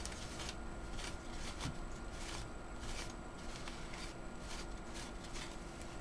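A paper towel rubbing over the metal lid of an AMD CPU seated in its motherboard socket: faint, irregular scrubbing strokes, wiping off finger oils before the heatsink goes on.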